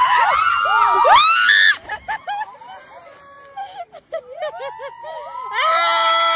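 Young men screaming and yelling as they leap off a high diving platform into a pool, their voices sliding wildly in pitch. A quieter stretch follows, then a long held shout near the end.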